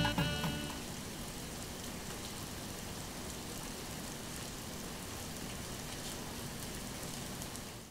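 Steady rain, an even hiss with no tune in it, as the last of the music dies away in the first second.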